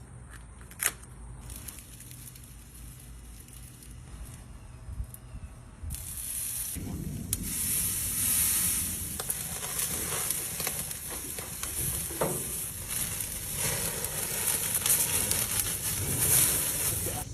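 Food sizzling and crackling in a hot pan, starting loudly about six seconds in after a quieter stretch with a single sharp click near the start.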